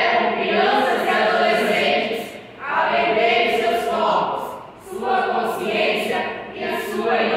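A group of young voices speaking in unison in Portuguese, a choral recitation, in three long phrases with brief pauses between them, in a reverberant church hall.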